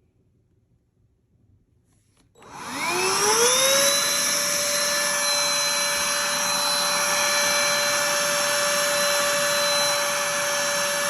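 Black+Decker Dustbuster cordless handheld vacuum switched on about two seconds in. Its motor whine rises quickly as it spins up, then it runs steadily with a high whine over the rush of air.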